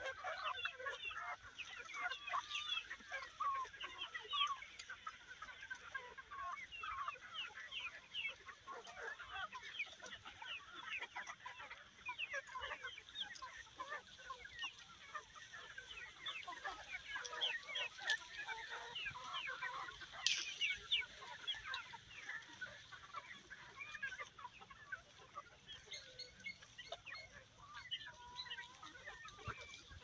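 A flock of chickens clucking continuously, many short calls overlapping.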